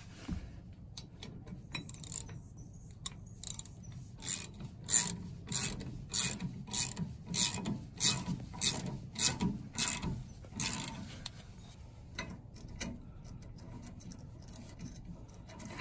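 Ratchet wrench with a deep socket clicking at about three clicks a second as it tightens a bolt on a sway bar end, drawing the bar in to compress its bushings. A few fainter clicks come before and after the main run.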